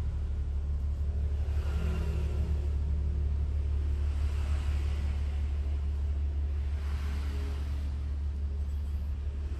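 A steady low machine hum, with a faint swell in the higher sound about every two to three seconds.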